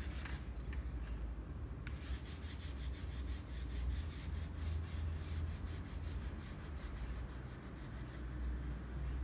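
Soft pastel stick held flat and rubbed back and forth across pastel paper in quick scratchy strokes, about five a second, laying in colour. A steady low hum runs underneath.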